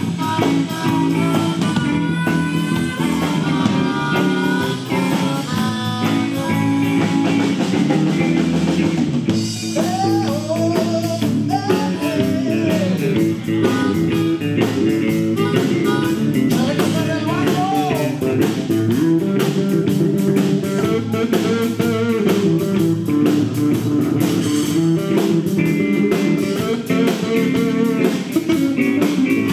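A live rock band playing: electric guitars and a drum kit, with a harmonica wailing over them, its notes bending up and down partway through.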